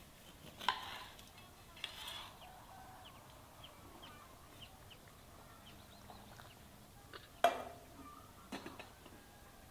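Chickens clucking in short calls, four spread across the few seconds, with faint small ticks between them.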